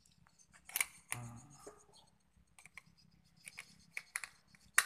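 AA batteries and the plastic battery compartment of a wireless handheld microphone being handled as the batteries are fitted: irregular clicks and light rattles, the sharpest click near the end.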